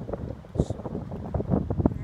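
Wind blowing across the microphone, an uneven low rumbling, with a short high hiss just over half a second in.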